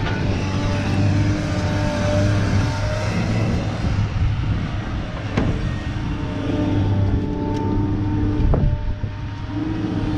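Heavy diesel engine of a scrapyard material handler running, its pitch rising and falling as it works, with a couple of sharp clanks about five and eight and a half seconds in.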